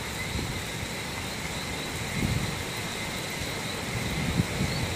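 Steady wind and heavy rain in a tropical storm, the wind buffeting the microphone with a low rumble that swells about two seconds in and again past four seconds.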